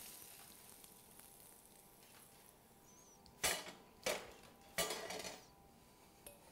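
A metal fork and a frying pan clattering and scraping against a glass mixing bowl as cooked food is scraped in and stirred: three short clatters about three and a half, four and five seconds in, quiet in between.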